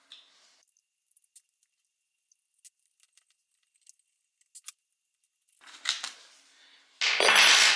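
Light metallic clicks and ticks of a screwdriver and screws as a septic air pump is taken apart, then a scrape and, near the end, a louder, harsher scrape of metal parts being moved.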